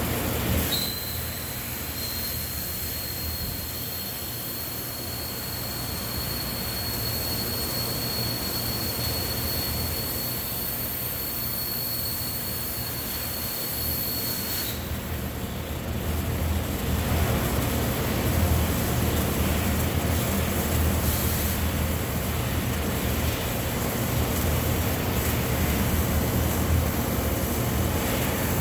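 Pulsed MIG welding arc running steadily, a continuous hiss over a low buzz, with a thin high whine through roughly the first half; it gets louder about two thirds of the way in.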